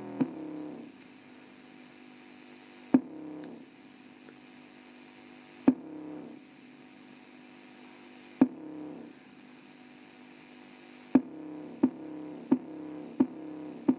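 Bass test track playing through the small built-in speaker of an Orion VHS/CRT TV combo: sharp beat hits, each followed by a short ringing low tone, spaced a few seconds apart at first, then coming quickly near the end.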